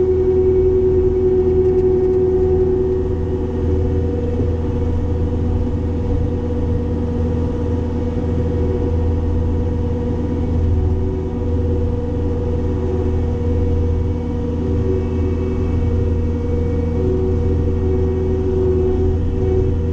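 Cat 262D skid steer's diesel engine and hydraulic Loflin open-front brush cutter running steadily: a deep engine drone with a steady whine over it.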